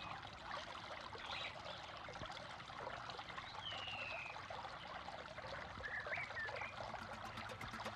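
Water trickling and gurgling, with a few faint bird calls: a short falling whistle about three and a half seconds in and a couple of brief chirps near six seconds. A rhythmic music track starts up near the end.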